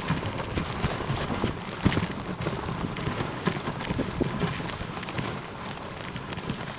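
Dog sled running along a packed snow trail behind a trotting dog team: steady scraping hiss of the sled over the snow with quick, irregular pattering of the dogs' paws.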